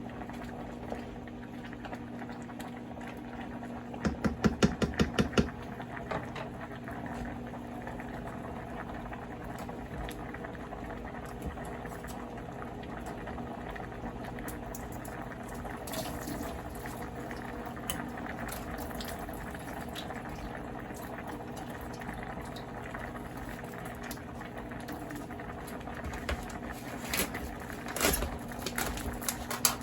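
Liquid bubbling steadily at the boil over a low steady hum. About four seconds in there is a quick run of about eight loud, evenly spaced pulses, and a few knocks come near the end.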